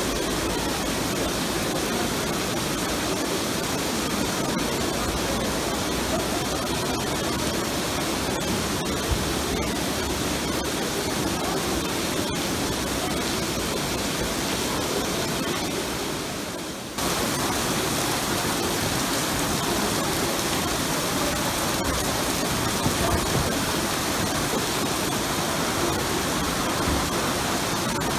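Heavy rain pouring down as a steady, dense rushing noise. It dips briefly about seventeen seconds in, then resumes at full strength.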